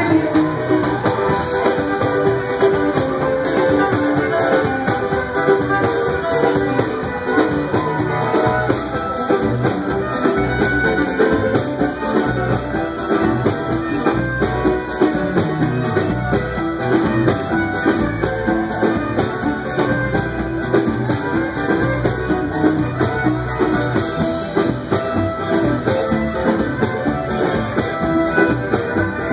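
Live Cape Verdean band music: a violin playing over guitar and drum kit.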